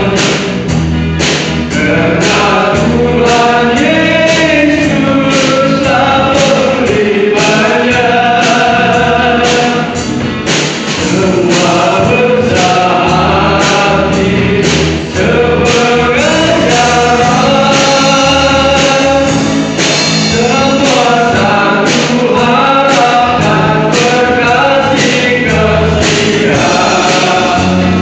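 A group of men singing a gospel song together, over an accompaniment with a steady beat and a bass line.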